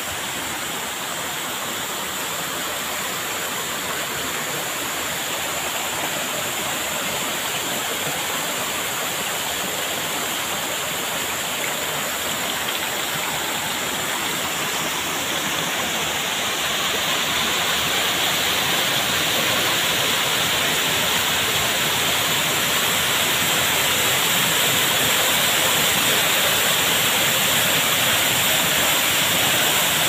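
Rushing water of a rocky stream and a small waterfall pouring between boulders, a steady rush that grows louder over the second half.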